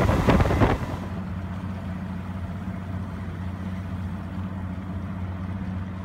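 A boat's engine running steadily with an even low hum, after a brief loud rush in the first second.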